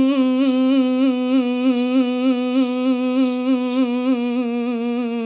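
A woman humming one long note at a steady pitch on a long exhale, its loudness pulsing about twice a second.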